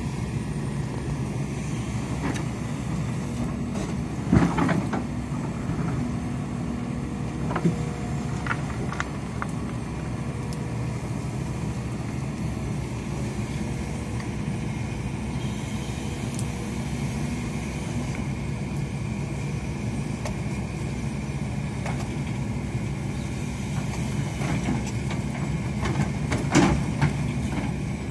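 Hidromek 300 crawler excavator's diesel engine running steadily while it digs and lifts soil, with a few sharp knocks from the bucket and boom, the loudest about four seconds in and near the end.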